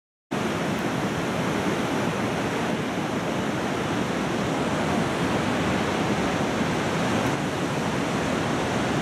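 Steady, loud roar of rushing river water, cutting in just after the start.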